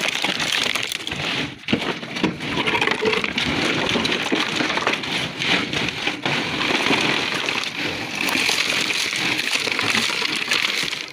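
Flat stone slabs being handled in a truck bed: a dense, continuous clatter and scraping of stone on stone over a layer of broken stone chips.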